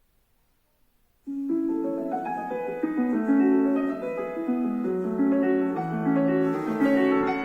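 Piano music played back through the 2019 iPad Pro 12.9-inch's built-in speakers, starting suddenly about a second in after near silence: a melody of held notes over lower bass notes.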